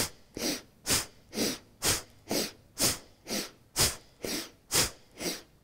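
A woman doing Bhastrika (bellows) breath: forceful inhales and exhales one after another, about two breaths a second, alternating stronger and weaker.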